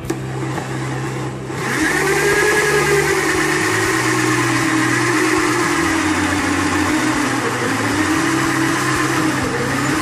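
Electric drill running a hole saw through thick plastic, the motor whine wavering up and down in pitch as the cutter bites and eases; it gets louder about two seconds in.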